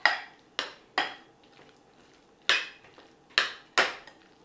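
A metal fork striking the side of a ceramic bowl six times at uneven intervals while mixing mashed potato filling, each hit a sharp clink with a brief ring.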